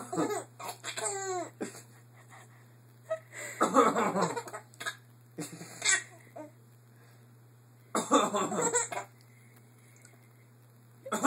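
A baby laughing in rising-and-falling giggles at a man's coughing, the coughs and laughs coming in separate bursts every few seconds.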